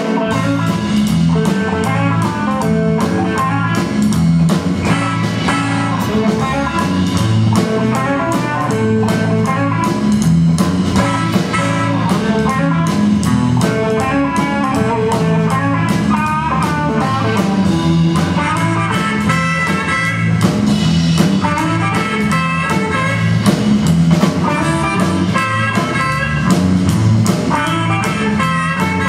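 A live blues band playing: solid-body electric guitar over electric bass and drum kit, with a steady beat.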